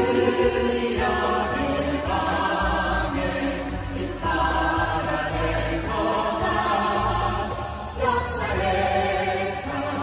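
A group of singers singing a song together into handheld microphones, amplified through a sound system, with sustained notes that shift every second or two.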